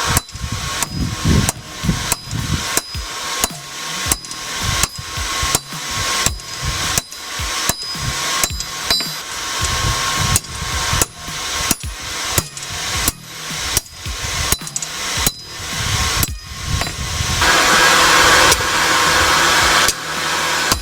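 Hand hammer striking hot steel on an anvil in a steady rhythm of about two blows a second, drawing out a sword blade. The blows stop for a few seconds near the end, leaving a steady rushing noise.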